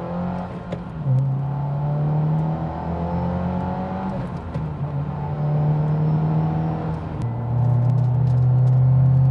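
2024 Subaru WRX's turbocharged 2.4-litre flat-four, heard from inside the cabin through a Cobb titanium catback exhaust, accelerating through the gears. The pitch climbs and drops back at upshifts about one, four and a half and seven seconds in, and it grows louder near the end.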